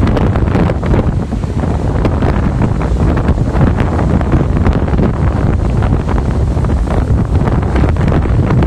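Strong storm wind buffeting the microphone in continuous rumbling gusts, over the rush of heavy surf breaking against a harbour wall.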